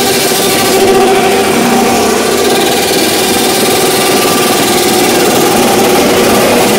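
Motorcycle engine held at a steady pitch during a stunt run, its note wavering only slightly.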